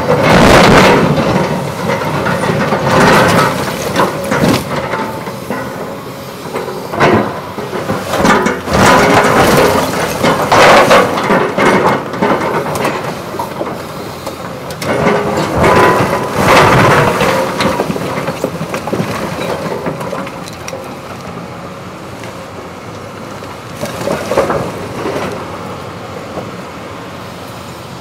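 Cat 329E excavator at work in demolition rubble: its bucket scrapes and knocks through broken concrete with irregular loud crashes and grinding, over the steady running of the machine. The crashes come mostly in the first two thirds, with one more near the end, then only the machine running.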